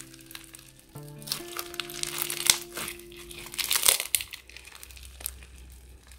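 Crunchy slime packed with polystyrene foam beads being squeezed and stretched by hand, giving bursts of dense crackling that are loudest about two and a half and four seconds in. Soft background music plays under it.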